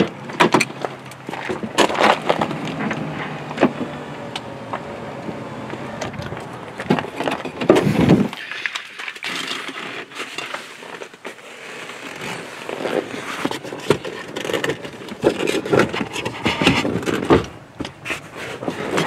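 Footsteps crunching on gravel, then a run of scrapes, clicks and knocks as a pickup truck's rear door and folding rear seat are handled, with a louder clatter about eight seconds in.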